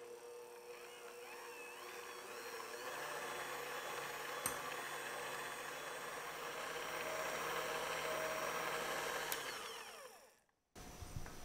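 Electric hand mixer running, its wire beaters whipping egg whites into meringue in a glass bowl. The motor winds down with a falling whine and stops about ten seconds in.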